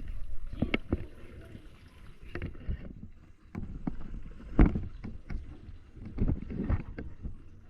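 Chicken frying in a pan over a charcoal stove, with irregular knocks and scrapes from a fork against the pan.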